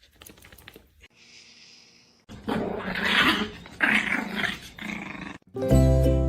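A pet animal growling in three rough bursts, each under a second long, after a couple of quiet seconds. Music comes in near the end.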